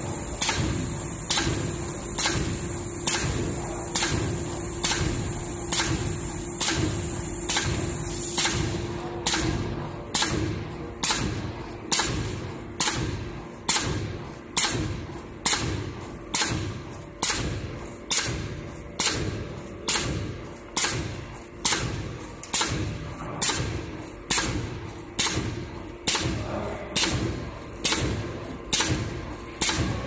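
Popcorn-bag aluminium foil mounting machine running, its foil-applying stroke thumping a little faster than once a second. A steady high hiss and hum under the thumps stop about eight seconds in.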